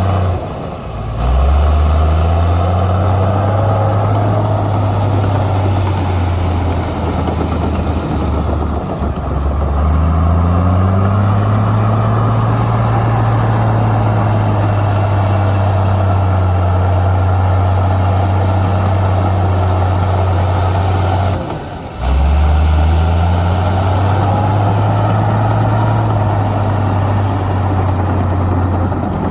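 Heavy diesel engine of earthmoving machinery working under load, its low note rising and falling with the revs. Twice it drops off briefly and then climbs back up.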